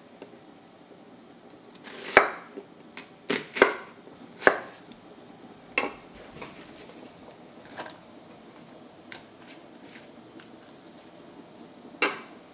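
Chef's knife chopping an onion into chunks on a wooden cutting board: irregular knife knocks on the board, several in the first half and one more near the end, over a faint steady background noise.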